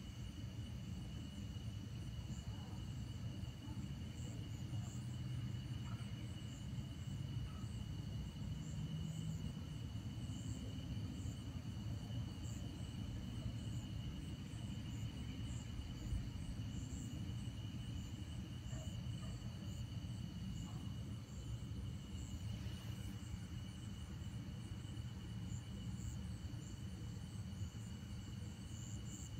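Night insect chorus of crickets: a steady high trill with quicker, pulsing chirps higher up, over a low steady rumble.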